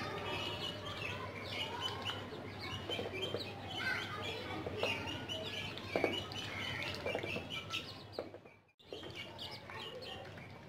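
Young chickens peeping over and over in short high chirps, with ducks dabbling their bills in a shallow water bowl. The sound cuts out briefly about three quarters of the way through.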